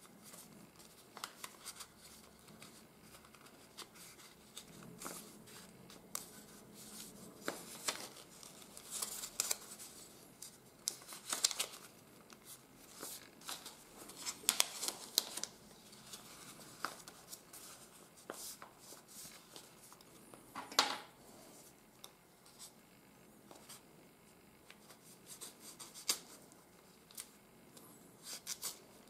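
Folded sheets of office paper rustling and crinkling as parts are pressed and tucked together by hand, in irregular scratchy spells that are loudest around the middle, with one sharper crackle about two-thirds of the way in.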